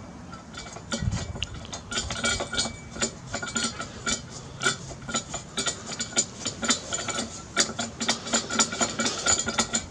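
Irregular metallic clicking and rattling as the flywheel nut is run down onto a Briggs & Stratton lawnmower engine, the flywheel held still by its grass screen.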